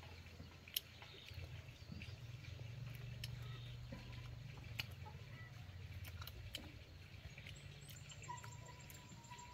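Light rustling of shrub leaves and twigs, with scattered small clicks, as fruit is picked by hand over a low steady rumble. Faint bird chirps sound in the background.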